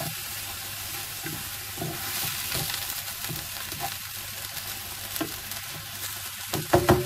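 Chopped onions sautéing and softening in a non-stick frying pan, sizzling steadily while a wooden spatula stirs and scrapes them, with a few louder knocks near the end.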